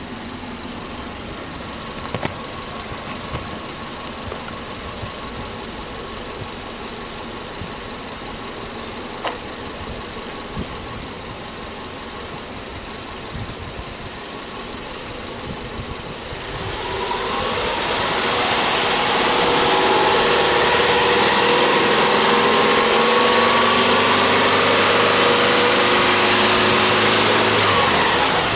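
Subaru Legacy's EJ25 2.5-litre flat-four engine idling steadily, then revved up about two-thirds of the way through and held at a steady higher speed before dropping back at the very end.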